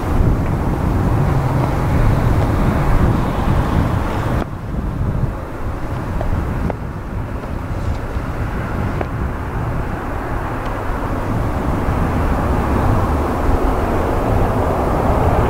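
Boeing 787-9 airliner's Rolls-Royce Trent 1000 engines on final approach to land: a steady low rumble of noise that grows louder near the end as the aircraft comes closer.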